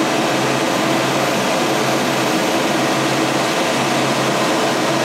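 John Deere 210G excavator's diesel engine running steadily at close range.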